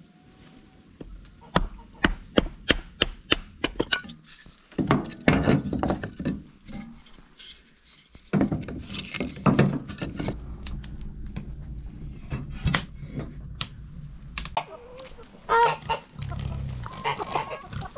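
A hatchet splitting kindling on a wooden chopping block: a quick run of sharp strikes. Near the end, geese honking and chickens clucking.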